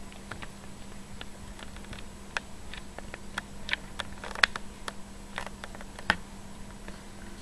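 Ragdoll kittens moving about in a cardboard box and on a rug: a scatter of light clicks, taps and scratches from their paws and claws, busiest in the middle, over a steady low hum.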